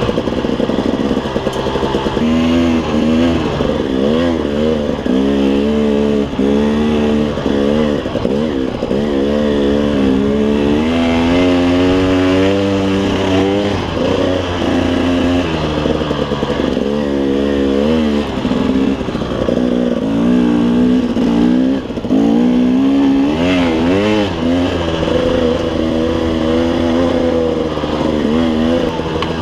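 KTM 300 two-stroke dirt bike engine being ridden, revving up and down over and over as the throttle opens and closes, with its pitch rising and falling all the way through.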